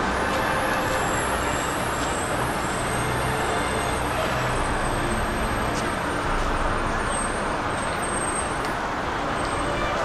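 Steady city street noise, mostly road traffic.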